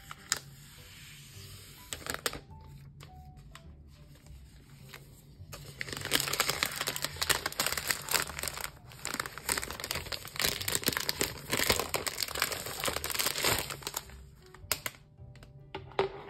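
Thin plastic protective film being peeled off a new iPad Pro, crinkling and crackling, busiest from about six to fourteen seconds in. Quiet background music underneath.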